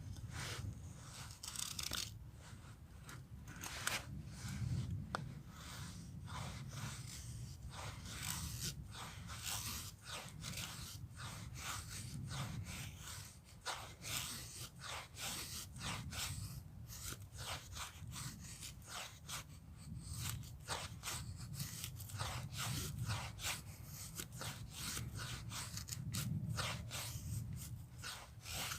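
Dry wood being worked by hand: a long, irregular run of short crunching and scraping strokes.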